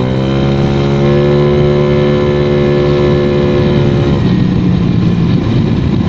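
Honda Vario 110 carburettor scooter's single-cylinder four-stroke engine, breathing through an AHM standard racing exhaust, pulling under throttle on the move. Its note climbs quickly at the start and then holds steady; about four seconds in the throttle eases off and the engine note drops back to a lower rumble.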